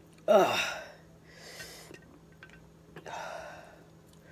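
A woman's loud gasp falling in pitch, followed by two hissing breaths through the mouth: a reaction to the burn of very spicy sauce.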